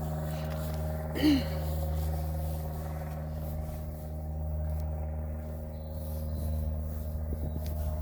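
A steady low mechanical hum, with one short loud sound about a second in.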